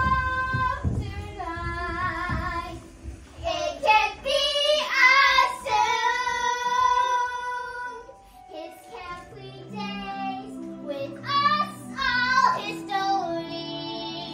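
A child singing a song with long held notes, joined about halfway through by steady low accompaniment notes beneath the voice.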